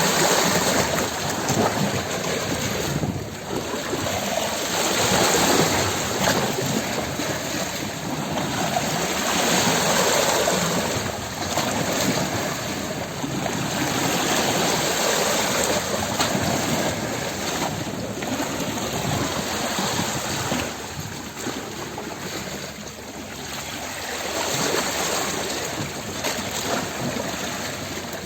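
Water running and splashing continuously, rising and easing in loudness every few seconds.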